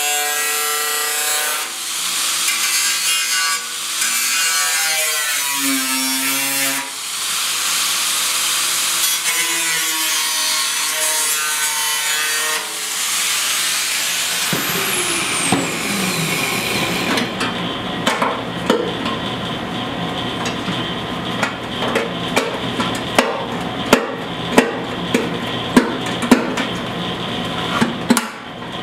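Angle grinder with a thin cut-off wheel cutting through the rusted sheet-steel fuel tank of a Yamaha RS 100 motorcycle, its whine dipping in pitch as the wheel loads in the cut. About fourteen seconds in it is lifted clear and winds down with a falling whine, followed by a series of sharp metal clicks and taps as the cut section is worked with a hand tool.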